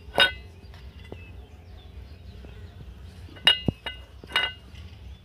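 Sharp clinks and clicks of a hard clear-plastic food box being handled and knocked while sandesh mixture is pressed into it: one clink just after the start, then three more in quick succession from about three and a half to four and a half seconds, with a duller knock among them.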